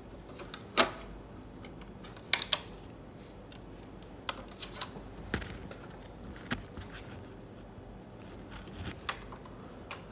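Scattered clicks and taps from handling a PS5 console and its repaired cooling fan while powering it up, with a sharp click about a second in and two close together around two and a half seconds, then lighter ticks. The fan is not yet spinning.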